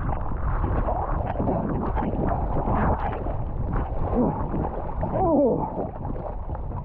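Water splashing and churning right at the microphone as a rider goes into the sea off a foil board and swims. About four to five seconds in, a short voice cry rises and falls over the splashing.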